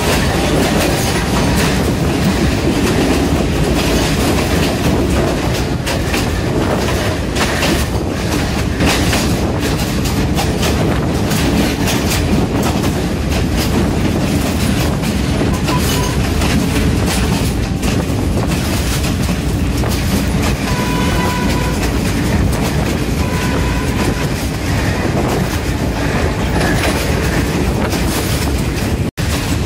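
Kelani Valley line parcel train running at speed, heard from outside an open carriage window: a steady rumble and rush of air with an irregular clatter of wheels over the rails. The sound drops out for an instant near the end.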